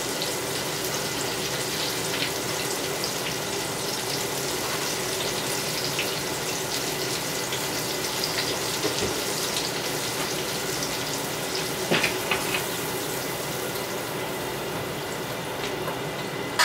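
Fish coated in fish-fry breading sizzling steadily in a pan of hot grease, with a couple of light knocks about twelve seconds in.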